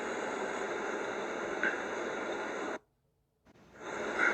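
Steady background hiss and static of a live-stream microphone, which cuts out completely for well under a second about three seconds in and then fades back.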